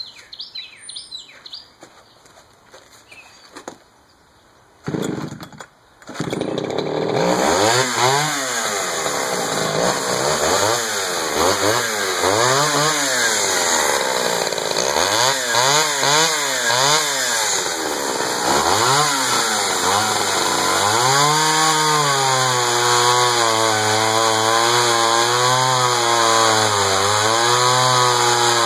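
Echo CS-500VL two-stroke chainsaw starting about five seconds in, then revved up and down over and over. From about 20 s it runs at high revs with its pitch wavering as the 20-inch bar cuts into a red oak slab.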